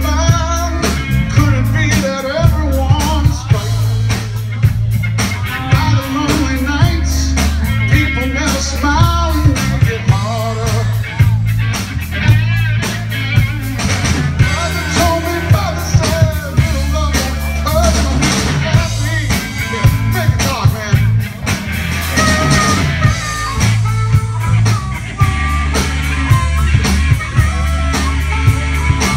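A live blues-rock band playing loud through amplifiers: electric guitars, low bass notes and a drum kit keeping a steady beat, with a bending harmonica lead over the top.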